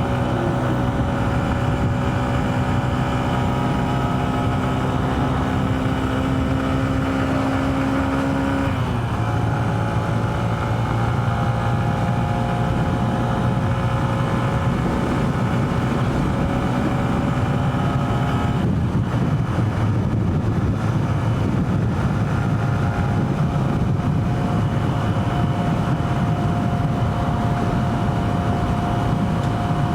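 Honda CB125F's single-cylinder four-stroke engine running steadily on the move, its note shifting in pitch about a third of the way in and again just past halfway, with wind rumbling on the rider's lav mic.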